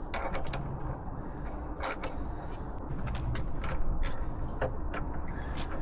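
Scattered clicks and light taps of small metal parts and tools being handled as an exhaust bracket is taken apart by hand, with two brief high squeaks about a second and two seconds in.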